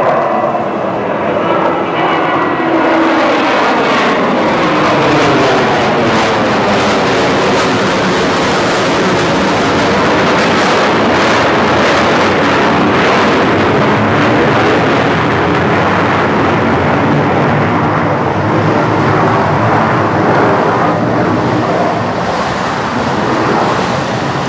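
Jet airliner with two rear-mounted engines climbing out overhead: loud, steady jet engine noise with a slow sweeping, phasing quality as it passes over.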